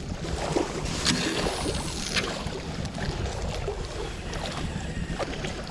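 Wind buffeting the microphone over lapping lake water, with two brief sharper rustles about one and two seconds in from handling the spinning rod and reel.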